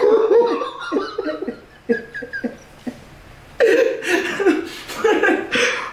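Two men laughing hard. The laughter fades about two seconds in and breaks out loudly again about three and a half seconds in.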